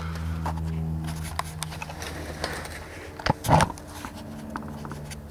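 Camera handling noise as the camera is moved into place: scattered clicks and rubbing knocks, with a louder double knock about three and a half seconds in, over a steady low hum.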